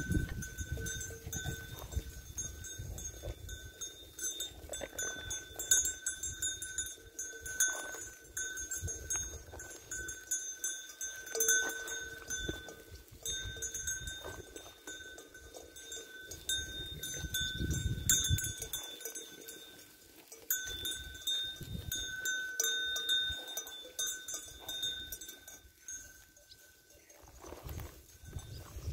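Sheep bells on a grazing flock, ringing and jingling on and off as the sheep move, with low rumbling now and then.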